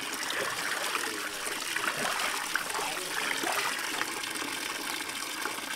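Tap water pouring into a plastic basin of water, splashing as hands wash pieces of cow head meat in it. A steady rushing stream.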